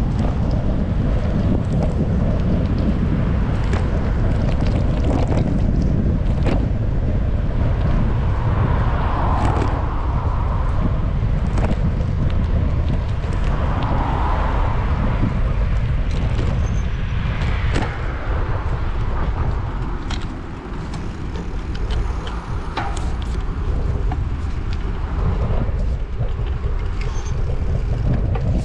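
Wind buffeting a GoPro's microphone on a moving bicycle, a steady low rush, with road traffic mixed in and scattered light clicks.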